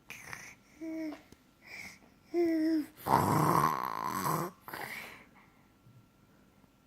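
A baby making piggy noises: a few short, squeaky vocal sounds, then a longer, rough, noisy grunt about three seconds in, lasting over a second.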